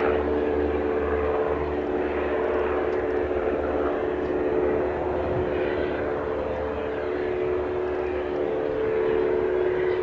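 Cessna 172 Skyhawk's piston engine and propeller running steadily, a sustained engine hum with steady tones and a pulsing low throb.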